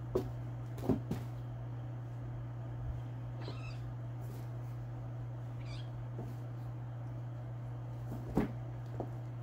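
Kittens tussling in a plastic pet carrier: a few knocks and thumps against the plastic near the start and again near the end, with two brief, faint, high mews in between. A steady low hum sits underneath.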